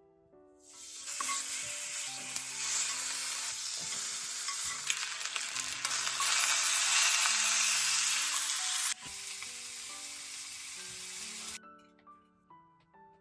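Food sizzling in a hot frying pan, a dense crackling hiss that starts about a second in, drops suddenly to a quieter sizzle about two-thirds of the way through, and cuts off shortly before the end. Soft piano background music plays underneath.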